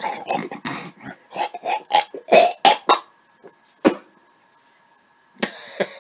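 A man hawking: a run of harsh, rasping throat-clearing snorts for about three seconds as he draws up phlegm, then one sharp click, the spit, about four seconds in.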